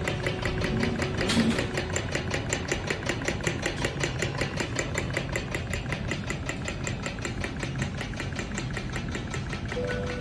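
Antique brass kerosene-powered table fan running: its small hot-air engine clatters in a steady, rapid, even rhythm of several beats a second as the flame keeps it turning.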